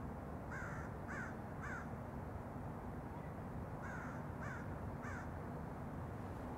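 A bird calling in two series of three short calls, each about half a second apart, over a steady low background noise.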